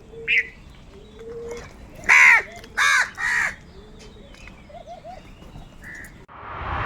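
Crows cawing: a short caw, then three loud harsh caws in quick succession about two seconds in, with fainter bird calls between. Near the end a rising whoosh swells up.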